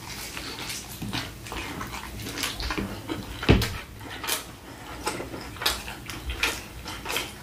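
Chewing a mouthful of cheeseburger: irregular smacking mouth sounds, with one louder smack about three and a half seconds in.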